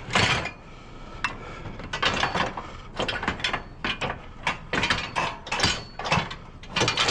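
Ratchet tie-down strap being cranked tight, its pawl clicking in quick bursts of strokes.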